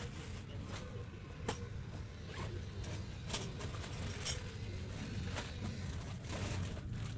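Wind rumbling steadily on the microphone, with irregular clicks and short rustles on top.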